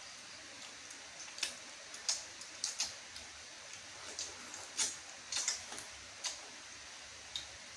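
Close-up eating sounds: a dozen or so irregular wet clicks and smacks from biting and chewing juicy fresh fruit.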